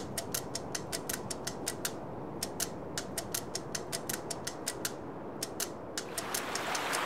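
Sharp, irregular clicks, about four or five a second, over a steady low hiss. About six seconds in, water starts pouring in a thin stream onto a potted plant's soil.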